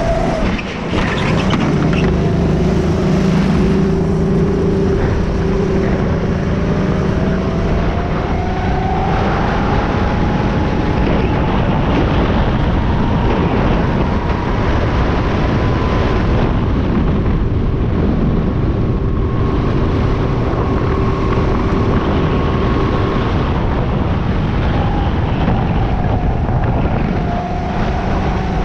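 Go-kart running at speed, heard from on board: its motor's whine climbs steadily in pitch for several seconds as the kart accelerates down a straight, holds high, then drops as it slows for a corner, over a constant rush of noise.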